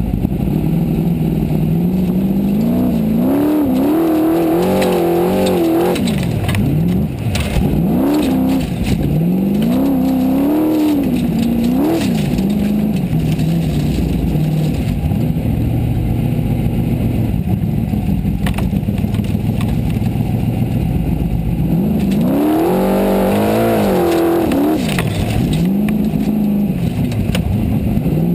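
Formula Offroad buggy's engine heard from inside the cockpit, revving up and down in repeated quick surges with a steadier drone between them. Short knocks and rattles come through several times in the first half.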